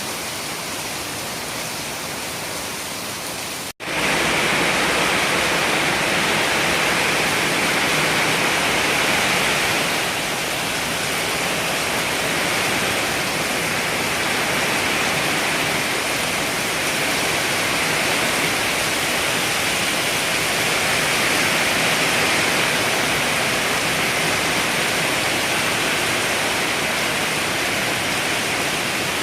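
Heavy rain pouring in a steady rush. It cuts out for an instant about four seconds in and comes back louder.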